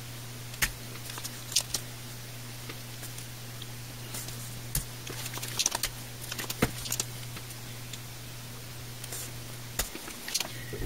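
Scattered sharp clicks and taps of tools working on a small circuit board held in a vise while solder is cleared from its holes, over a steady low hum.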